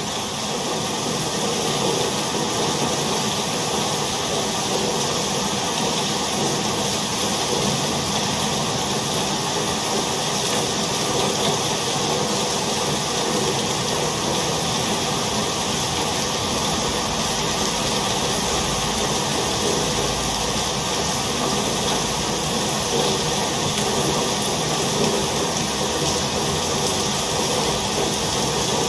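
Rain falling steadily: a continuous, even hiss.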